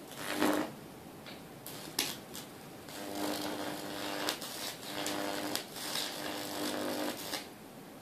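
High-voltage arc from a microwave oven transformer (about 2000 volts), buzzing and crackling. A short loud burst about half a second in and a sharp snap at two seconds, then steady buzzing in three stretches of about a second each from about three seconds on.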